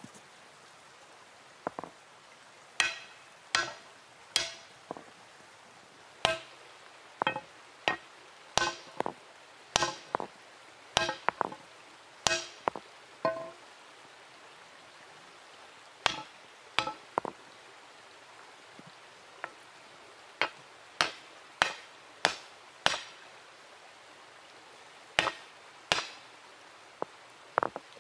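Hand-held stone hammer striking hot steel on a boulder anvil: sharp, irregular blows in runs of several, with pauses between runs and a brief metallic ring after each blow.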